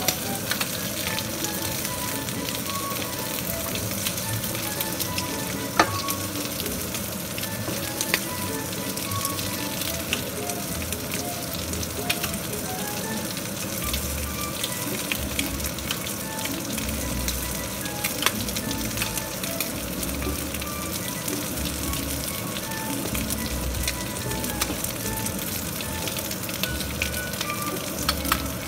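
Pancakes sizzling in a nonstick frying pan on a gas burner: a steady frying hiss with a few sharp crackling pops.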